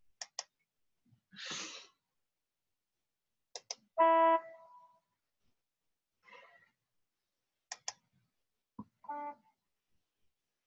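Computer mouse double-clicks, with two short organ notes played back by Sibelius notation software as notes are entered: a loud E4 about four seconds in, then a quieter D4 near the end.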